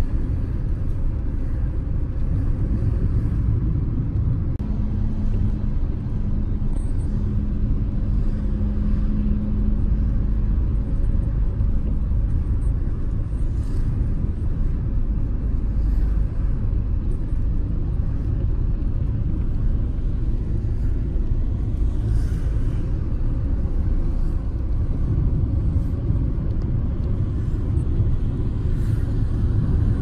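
Steady low road and engine rumble inside the cabin of a moving vehicle. A faint steady hum joins it about five seconds in and fades out several seconds later.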